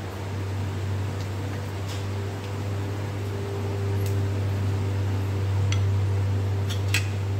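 Cumin seeds sizzling in hot oil in an iron kadai, with a faint hiss and a few scattered pops. A steady low hum, louder than the sizzle, runs underneath.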